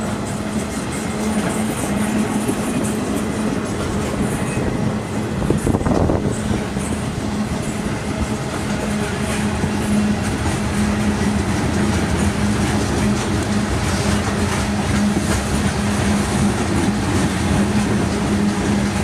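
Freight cars (spine flatcars and tank cars) rolling slowly past on steel wheels: a steady rumble and clatter from the wheels on the rails, with a steady low hum underneath and a louder clunk about six seconds in.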